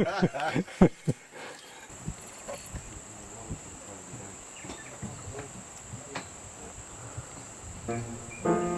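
Insects chirring steadily in one high, even tone. A few voice sounds come at the start, and piano music comes in near the end.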